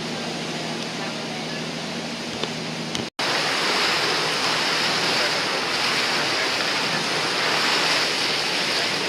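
Steady rush of wind and sea water heard from a moving boat. For the first three seconds a low, steady engine hum runs beneath it. After a sudden cut about three seconds in, the rush is louder and hissier.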